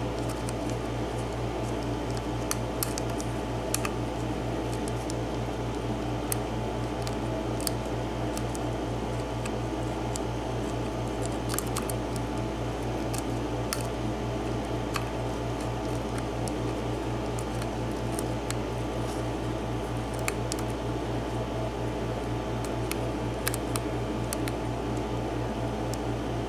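Faint, irregular clicks and ticks of a lock pick lifting and probing the pins of a seven-pin mortise cylinder held under tension, over a steady low hum.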